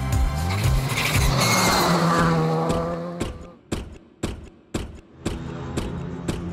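Rally car sliding on a gravel stage, its engine running hard with gravel spraying, over background music. After about three seconds the car fades out and the music's steady beat, about two beats a second, carries on.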